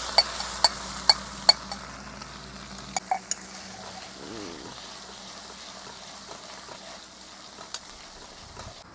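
Hot oil sizzling hard in a steel kadai as a chopped green mixture drops onto the cumin and whole garlic, with a steel ladle clinking against the pan about twice a second. After about three seconds the sizzle settles to a quieter, steady frying as it is stirred, with an occasional clink.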